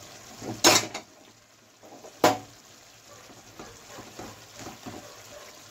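A spoon knocks sharply against a cooking pan twice, then stirs through a wet vegetable curry with soft, repeated small scrapes and clicks.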